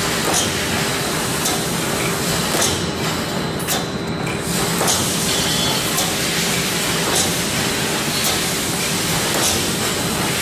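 Automatic welded wire mesh fence-panel welding machine running: a steady electrical hum and hiss with sharp clacks every one to two seconds as it welds the cross wires and steps the mesh forward.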